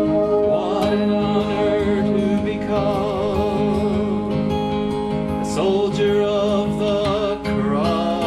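A man singing through a microphone over strummed acoustic guitar accompaniment, holding long notes with vibrato.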